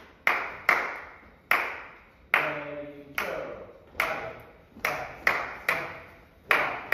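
Hands clapping about ten times in a steady long-short-short rhythm, the ta-ti-ti pulse of Greek dance music, each clap ringing on in the hall's echo.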